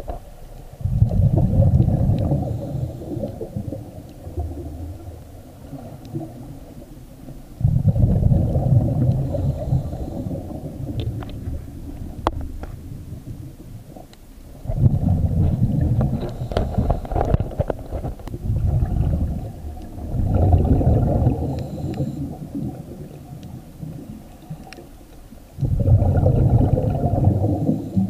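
Scuba regulator exhaust bubbles from a diver breathing out, heard muffled through an action camera's waterproof housing underwater: five long, low rumbling bursts, one every five or six seconds, with quieter stretches between breaths.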